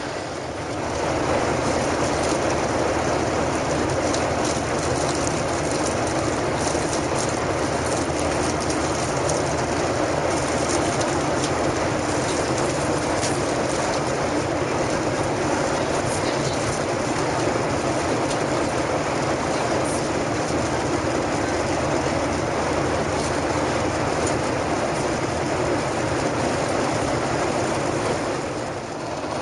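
Steady cabin drone of a Boeing 737-800 at cruise: jet engine and airflow noise heard from a window seat inside the cabin.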